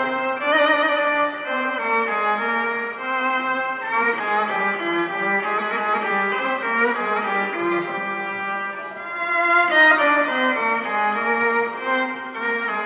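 Solo violin playing a melody, the notes wavering with vibrato and swelling louder about ten seconds in.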